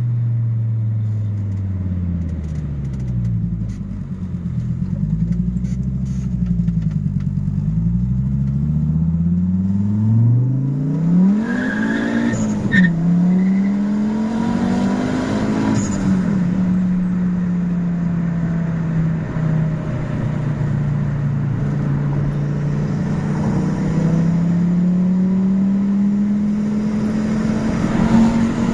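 Tuned Fiat Marea 2.0 20V turbo five-cylinder engine running under acceleration: its pitch climbs steeply about ten seconds in, dips once and climbs again, then holds fairly steady and rises gently near the end.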